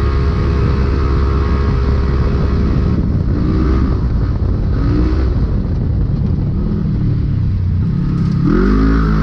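Polaris RZR race UTV engine running hard under load, heard from inside the cockpit, over a rough rumble. The revs dip and pick back up briefly twice mid-way, then climb sharply near the end as the throttle opens.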